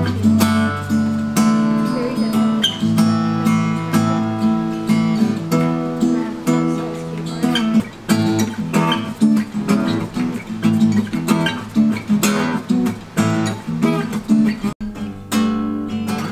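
Steel-string flat-top acoustic guitar strummed in a steady rhythm, its chords ringing. The sound cuts off for an instant near the end.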